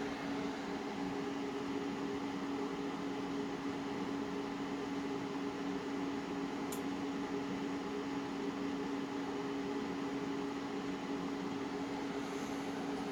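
Small cooling fans running with a steady whirring hum and a low steady tone. A single faint tick about seven seconds in.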